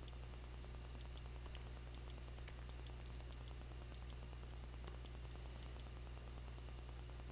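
Computer mouse button clicked about eight times at an even pace, roughly once every 0.7 s, each click a quick press-and-release double tick; the clicking stops about six seconds in. A steady low electrical hum runs underneath.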